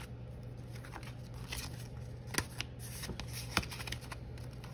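Paper bills and a tracker card being handled and slid into a laminated plastic cash envelope: soft rustling with scattered sharp clicks, two louder ones about two and a half and three and a half seconds in, over a steady low hum.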